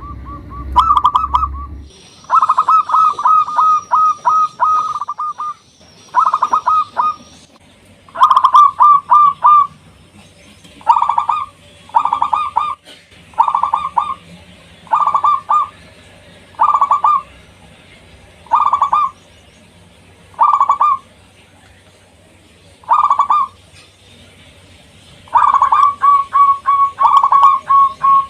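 A zebra dove (local perkutut) cooing: short, rapid trilled coo phrases, about one every two seconds, with longer runs of phrases near the start and near the end.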